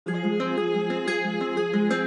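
Background music: a plucked-string melody with notes changing about four times a second.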